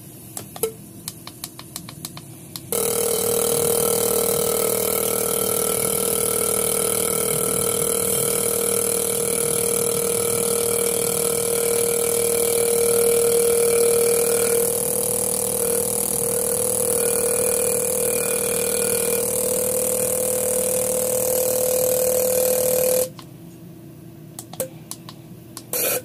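Fuel injector from a Nissan MR18 engine being driven by a bench injector tester: a few sharp clicks, then about twenty seconds of a steady, loud buzz with a spray hiss as it is pulsed rapidly and sprays, cutting off suddenly, then a few clicks again near the end.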